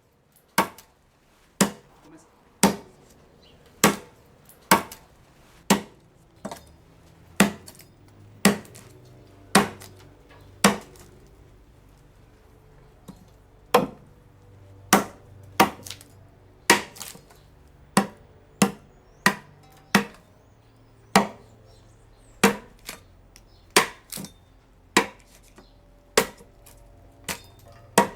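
A hand blade chopping into wood, one sharp blow roughly every second at an uneven pace, each with a short ring: a viola de cocho body being roughed out of a block of wood by hand.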